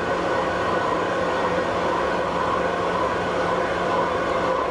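Large metal-cutting machine tool running steadily while machining a cast iron workpiece. A continuous mechanical drone with a steady hum, even throughout.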